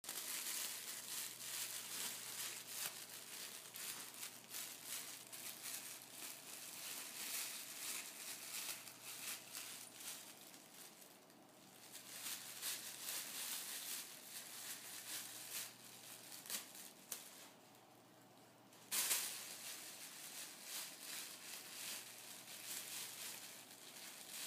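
Thin plastic supermarket bag crinkling and rustling as a cat licks it intently, a dense run of small crackles. It goes quieter for about a second near the middle and again for a second or two about three-quarters through, then starts up again sharply.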